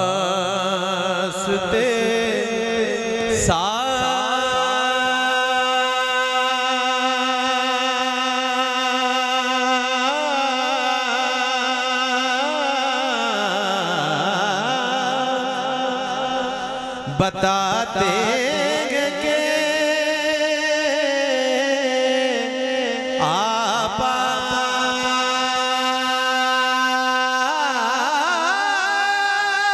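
A man singing a naat in long, drawn-out held notes with a wavering vibrato, amplified through a microphone. A brief knock a little past halfway.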